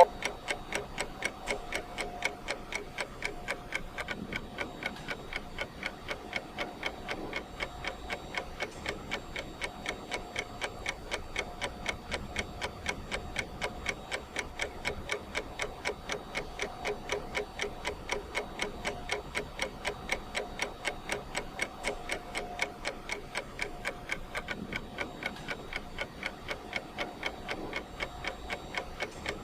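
Clock ticking steadily, even clicks at a regular pace with no change throughout.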